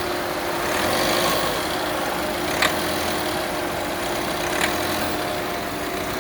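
Tata Nexon's engine running steadily while the car is driven, with two sharp ticks about two seconds apart in the middle.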